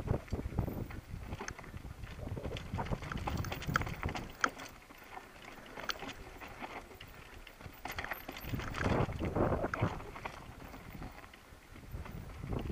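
Mountain bike descending a dry, stony dirt singletrack: tyres crunching over gravel and the bike rattling with many small clicks and knocks over a low rumble, with some wind on the microphone. The rattling grows louder for a couple of seconds around nine seconds in.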